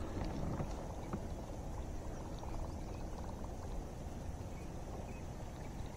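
Water lapping and gurgling against a kayak hull, a steady low wash with a few faint small clicks.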